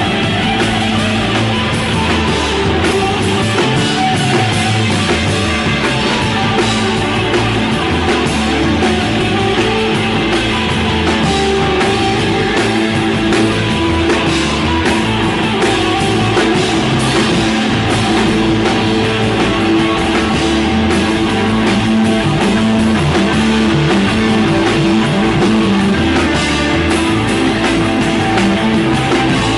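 Live rock band playing: electric guitar holding sustained tones over bass and drum kit, with steady cymbal and drum hits throughout.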